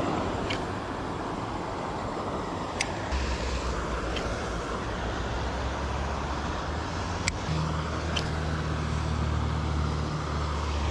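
Steady outdoor background noise with a low, steady motor hum that comes in about three seconds in and thickens near the middle. A few sharp clicks are scattered through it.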